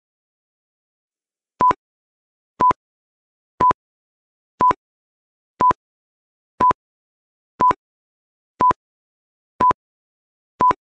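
Quiz countdown timer sound effect: ten short, identical beeps at one per second, starting a little over a second in, marking the seconds left before the answer.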